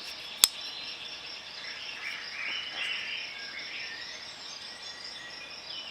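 Steady outdoor chorus of crickets or other insects, a high even trill, with birds chirping through the middle. A single sharp click about half a second in.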